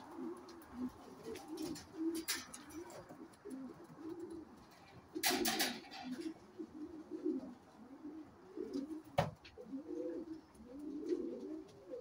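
Racing pigeons cooing continuously at the loft, with a few loud flurries of wing flapping and a sharp knock a little after nine seconds as a bird flies in and lands.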